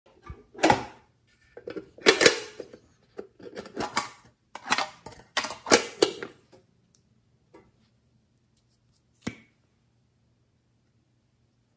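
A snail-shaped metal tin box being handled, its lid and clasp clattering and clicking in a quick string of knocks over the first six seconds. One sharp click follows near the end.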